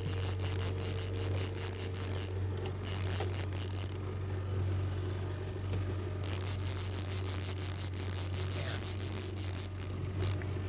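A fishing reel's drag ratchet buzzes as a hooked chinook salmon runs and pulls line off. It breaks off twice, the longer pause near the middle, over a steady low hum.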